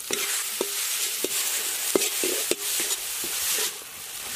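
Onions and tomatoes sizzling in hot oil in a kadai, with a metal spatula clinking and scraping against the pan about every half second as it stirs.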